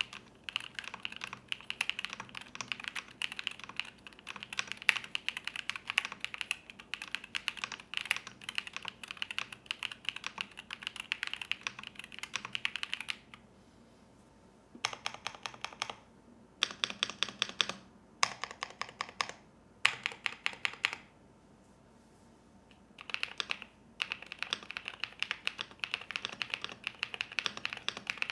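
Typing on an AKKO 5075B mechanical keyboard with linear switches, the keystrokes clacking steadily. About halfway through the typing stops briefly, comes back as four short bursts of very rapid key presses, pauses again, then resumes as steady typing.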